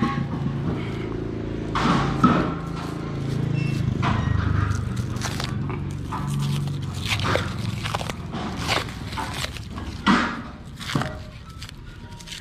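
Clear plastic wrap crinkling and crackling in short irregular bursts as it is peeled off a new stainless-steel exhaust pipe by hand. A low hum runs underneath for a few seconds in the middle.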